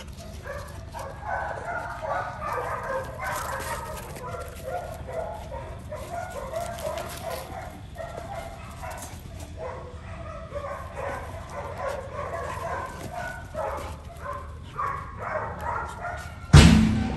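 Two dogs play-fighting, with short yips and barks scattered through the play. A single loud thump near the end.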